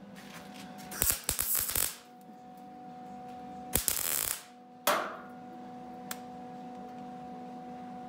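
MIG welder arc crackling in short bursts as plug welds are laid through pre-drilled holes in sheet-steel quarter panel and door jamb: a cluster of quick bursts about a second in, a longer one around four seconds and a brief one near five.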